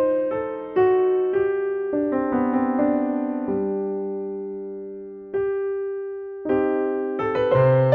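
Background solo piano music: single notes and chords struck and left to ring. It slows to a held chord that fades out a little past halfway, then the playing picks up again near the end.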